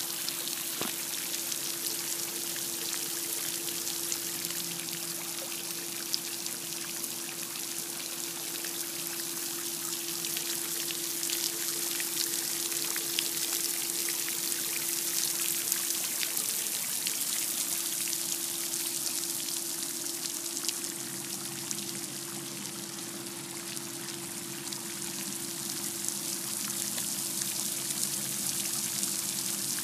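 Floating fountain spraying water that falls back onto the surface of a pool: a steady splashing hiss with a patter of drops.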